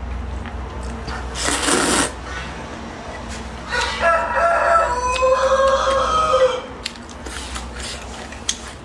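A close slurp of noodles about a second and a half in, then a rooster crowing one long call of nearly three seconds near the middle.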